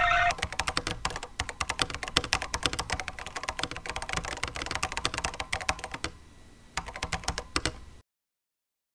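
Rapid, irregular clicking of typing on a computer keyboard. It pauses about six seconds in, resumes for a second, then cuts off suddenly.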